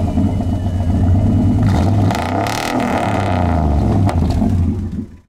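A car engine running just after being started, with a brief rise in revs about two to three seconds in; the sound cuts off suddenly near the end.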